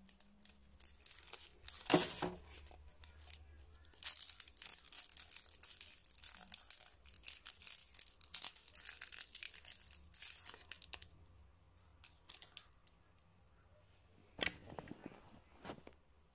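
Metallised foil wrapper of a Celebrations mini Twix being twisted and torn open by gloved hands, crinkling and crackling. A sharp crackle comes about two seconds in, dense crinkling runs from about four to eleven seconds, and a last burst comes near the end.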